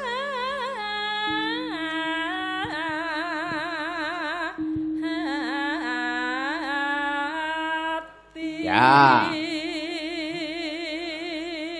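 A Javanese sinden singing a slow solo vocal line into a microphone, holding long notes with strong vibrato and sliding between pitches, over steady held accompanying notes. About nine seconds in she sings one loud swooping note, the loudest moment.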